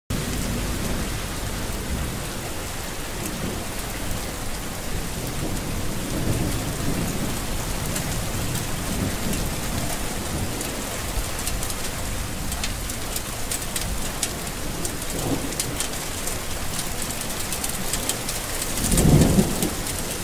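Steady heavy rain with dense drop patter and low rumbles of thunder rolling through, the loudest rumble near the end.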